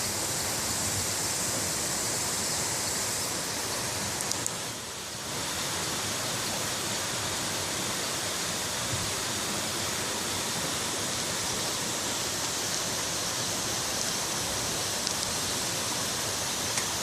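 Steady rushing of running stream water, with a brief dip around five seconds in and a few faint clicks.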